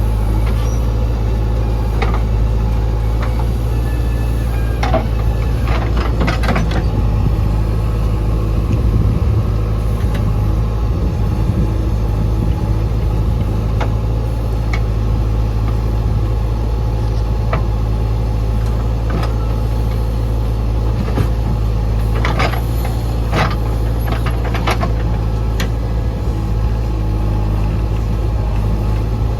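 Heavy diesel engine of a backhoe loader running steadily at a constant pitch. Clusters of sharp clanks come about six seconds in and again about twenty-three seconds in.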